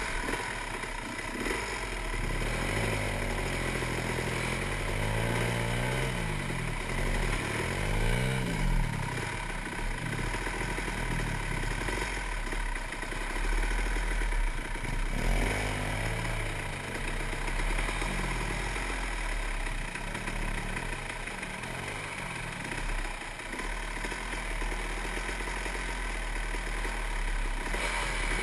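Enduro dirt bike engine ridden over rough, muddy trail, its note rising and falling again and again as the throttle is worked, with clatter from the bike over the rough ground.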